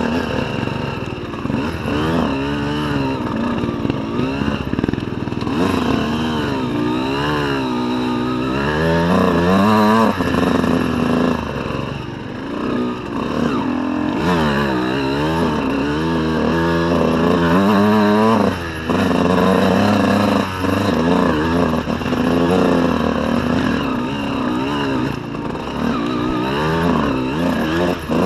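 Honda CR125 two-stroke dirt bike engine being ridden off-road, its pitch rising and falling constantly as the throttle is opened and closed, with a few brief drops where the throttle is shut.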